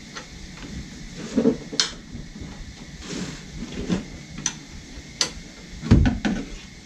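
Scattered metallic clicks and clinks of a 13 mm offset wrench working the idler pulley bolts on the front of the engine. A duller, heavier knock comes just before six seconds in.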